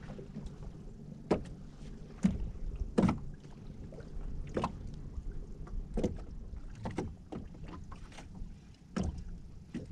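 Small waves slapping irregularly against the hull of a small boat drifting at sea, a sharp knock every second or so over a steady low rumble.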